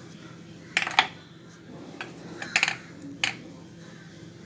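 Fingertips dabbing flour-and-water paste onto a samosa sheet on a wooden board: a scatter of short, sharp clicks and taps, with a quick little cluster about two and a half seconds in.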